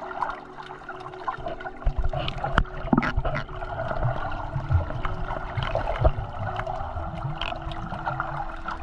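Muffled underwater sound from a camera held beneath the surface while snorkeling: a steady wash of water noise with scattered sharp clicks, a faint steady hum low down, and low knocks and sloshing against the camera that grow louder about two seconds in.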